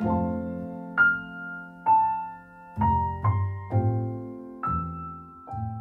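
Background piano music: notes and chords struck roughly once a second, each ringing and fading, with a last note fading out near the end.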